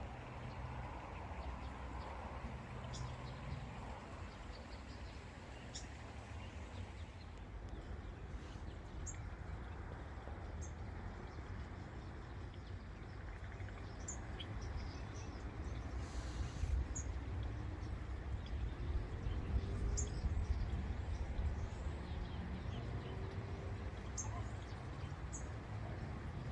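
Small birds chirping briefly now and then over a steady low rumble of outdoor background noise.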